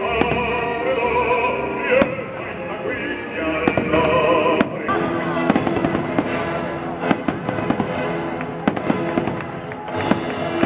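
Fireworks going off in quick succession, many sharp bangs and crackles, with music playing throughout; the music changes just before halfway.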